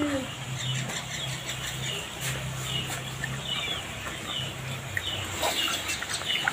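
Chickens clucking and small birds chirping in short, scattered calls over a low steady hum.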